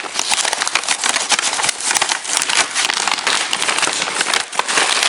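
Takeout bag and food containers rustling and crinkling continuously as the order is unpacked.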